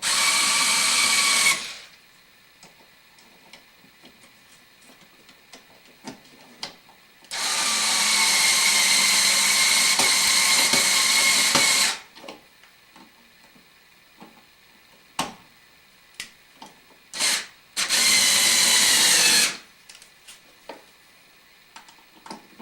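Power screwdriver running in bursts as it drives the long mounting screws of a wall switch: a short run at the start, a long run of about five seconds, then a brief blip and another short run near the end, with small clicks in between.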